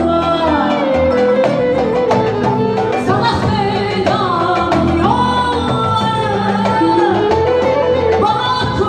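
A woman singing a Turkish song live into a microphone over instrumental accompaniment, with long held notes that slide down and up.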